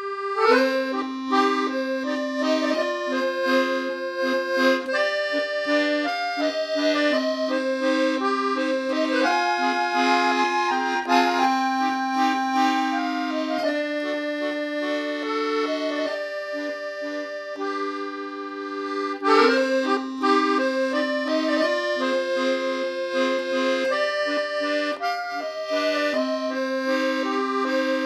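Instrumental background music: an accordion playing a lilting melody over held lower notes.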